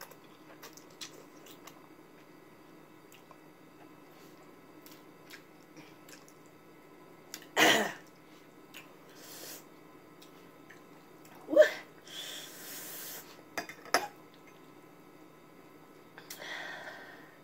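A person eating thick Korean spicy instant noodles: quiet chewing, broken by a few short, sudden louder sounds, the loudest about eight seconds in and again near twelve seconds.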